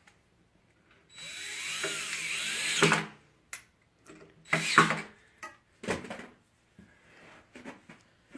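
Power drill driving a screw: the motor runs for about two seconds, pitch sliding as it works, and stops abruptly. A few short knocks and clatters follow.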